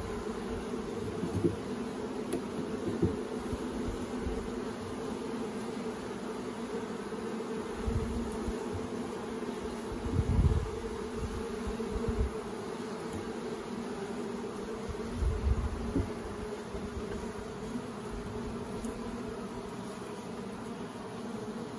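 Honey bees buzzing in a steady hum from an open hive and the bee-covered frame being held above it. A few brief low bumps come through, loudest about ten seconds in.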